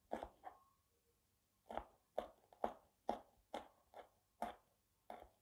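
Kitchen knife slicing a green chili on a plastic cutting board: sharp taps of the blade striking the board, two near the start, then after a short pause a steady run of about two a second.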